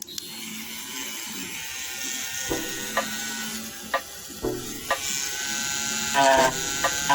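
Handheld die grinder running steadily, grinding the edge of a cracked plastic motorcycle body panel, with occasional sharp clicks as the bit catches.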